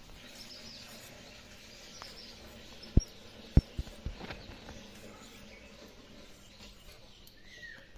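Quiet outdoor background with faint bird chirps, broken about three seconds in by two sharp low knocks half a second apart and a few lighter ticks after them.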